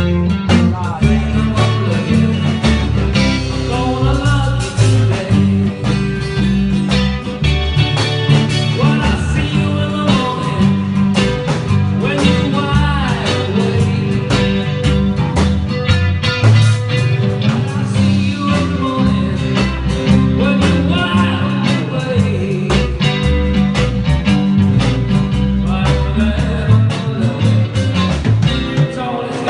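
A live band playing a song: a singing voice over guitar, bass and a steady drum beat.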